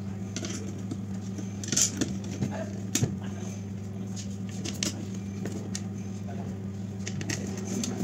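Hands handling an LED street light's housing on a workbench, making scattered light clicks and knocks, sharpest about two and three seconds in, over a steady low hum.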